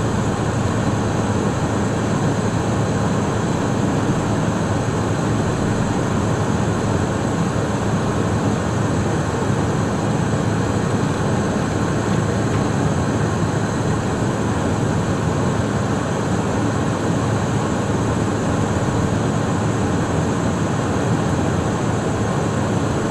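Steady, unchanging cabin noise inside a Cessna Citation Mustang light jet in flight: rushing airflow mixed with the hum of its twin Pratt & Whitney PW615F turbofans.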